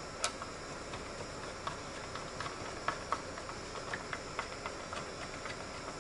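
Faint, irregular small clicks and taps of hands and a screwdriver working on computer hardware, over a steady hiss.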